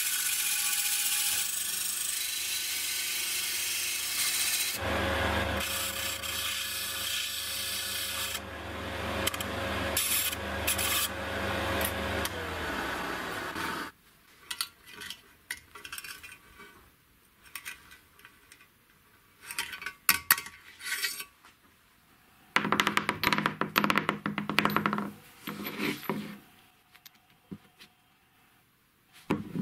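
Disc sander running with a thin metal blade held in pliers grinding against its abrasive disc, a steady gritty rasp over the motor hum. About twelve seconds in the motor is switched off and winds down with a falling hum, leaving scattered clicks of small parts being handled and a few seconds of loud scraping later on.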